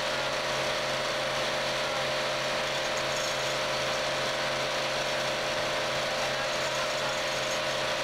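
Hydraulic vibratory pile hammer clamped on a steel sheet pile, running with a steady, dense mechanical buzz and a constant hum as it drives the sheathing into the ground.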